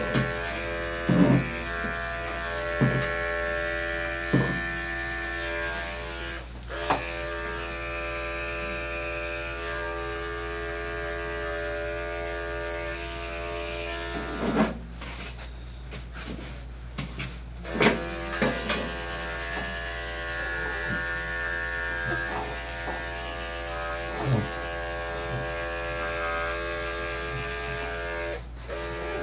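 Corded electric dog-grooming clippers running with a steady buzzing hum as they cut the dog's coat. The hum drops out for a few seconds about halfway through, and a few short knocks sound over it.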